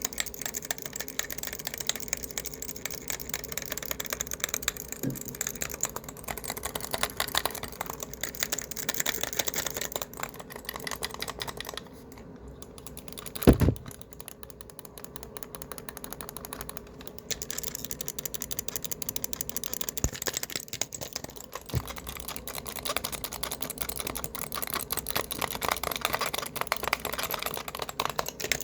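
Fast, hard typing on a laptop keyboard: a dense run of key clicks. Near the middle it pauses briefly, broken by a single louder knock, then carries on.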